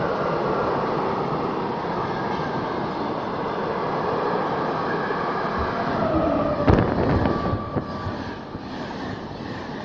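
A long freight train of covered wagons and tank-container flats rolling through the station with steady wheel-on-rail noise, with a couple of sharp knocks about two-thirds in. Near the end the sound changes to the coaches of an express passenger train rushing past close by.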